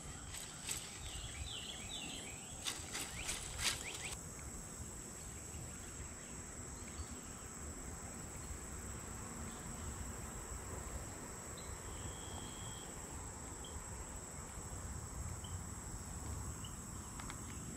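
A steady, high insect trill of crickets over faint outdoor background noise. Short bird chirps and a few sharp clicks come in the first few seconds.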